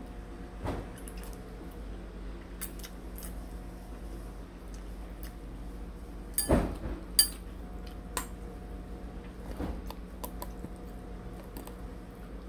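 Someone eating instant noodles: slurping and chewing, with metal chopsticks clicking against a ceramic bowl. The clicks are scattered, and the loudest ones come about six and seven seconds in, over a faint steady hum.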